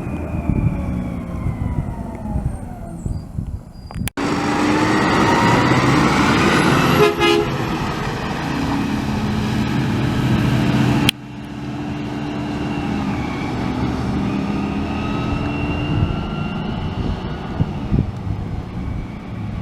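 Garbage truck's diesel engine running, with high-pitched brake squeals that slide up and down in pitch. The sound cuts abruptly twice, about 4 and 11 seconds in, to other takes of the same squealing truck.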